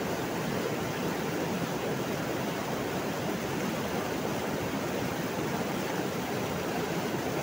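Dirty backwash water from a rapid sand filter being cleaned by backwashing, spilling over the wash-water troughs in several streams: a steady rushing of falling water.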